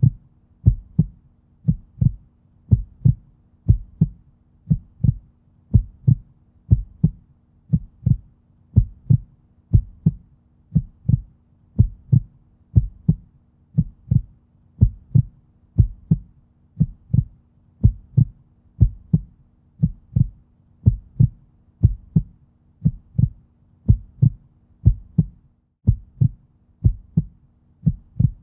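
Heartbeat-like low thumping pulse, about two thumps a second, alternately louder and softer. A faint steady low hum lies beneath it and drops out near the end.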